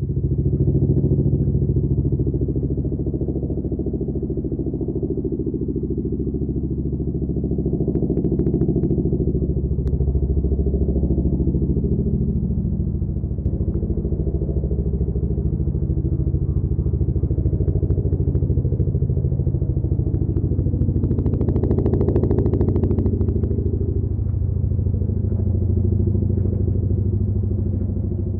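Boeing CH-47 Chinook tandem-rotor helicopter running steadily, its rotor chop a rapid, even beat over a deep engine drone. The chop grows sharper and louder for a couple of seconds about three quarters of the way through.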